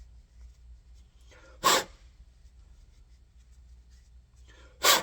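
Two short, sharp bursts of breath, one about one and a half seconds in and one at the very end.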